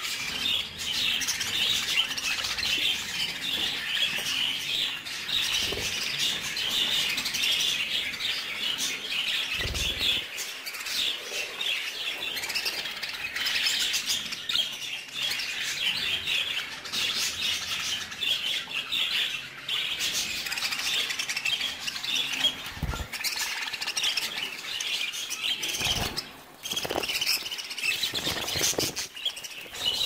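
A flock of budgerigars chattering, a dense stream of chirps and warbles with no break, broken by a few short low thumps.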